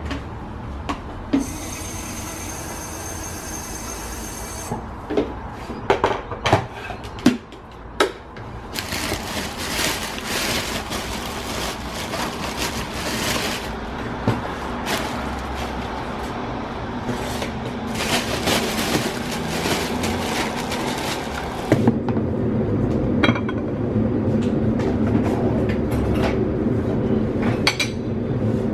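Kitchen sounds of making toast and a hot drink: an electric kettle handled at the sink, sharp clicks, knocks and clinks of a bread bag, toaster and plate, and stretches of steady rushing noise. For the last several seconds a steady low hum takes over.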